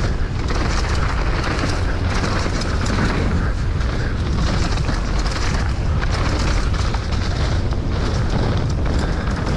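Downhill mountain bike riding a dirt trail: a steady heavy rumble of wind buffeting the microphone over tyre roll noise, with frequent small clatters from the bike.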